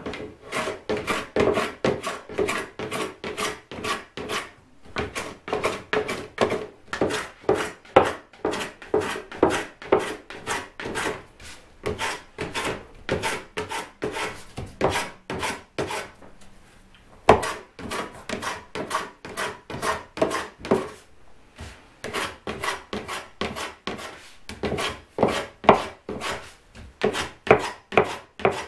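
First-generation Kanai Japanese hand plane (kanna) shaving a spruce guitar soundboard in quick repeated strokes, about two a second, each a short hissing swish. There are brief pauses about five seconds in and again around sixteen seconds.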